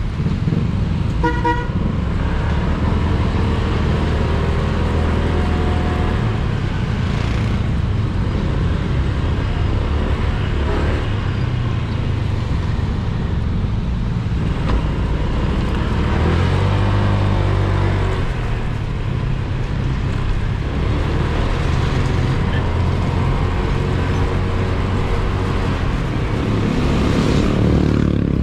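Motorcycle engine running on the road under rushing wind noise, its note rising and falling with the throttle. A short horn toot sounds about a second and a half in.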